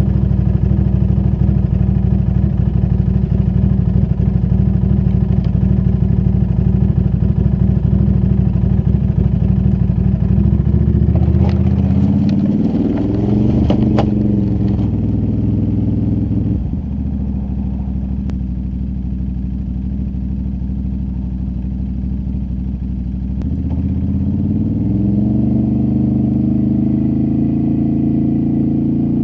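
ATV engine idling just after a cold start, revved up and back down about twelve seconds in, settling to a lower, quieter idle, then rising in pitch again near the end.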